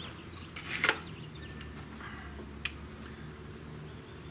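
Umarex Throttle .22 breakbarrel air rifle handled while being readied for the next shot: a loud clack about a second in as the barrel is snapped shut after loading, then a single sharp click a couple of seconds later.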